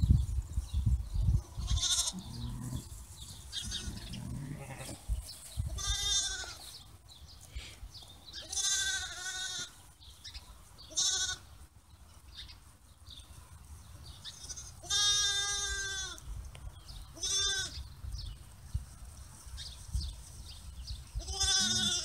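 Sheep bleating on and off, about seven quavering bleats spread out, one longer than the rest near the middle. Low thumps in the first few seconds.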